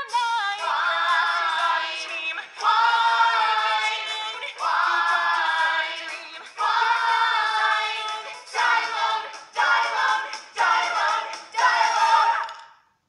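Stage musical cast singing a series of long held phrases, then shorter ones, cutting off suddenly near the end.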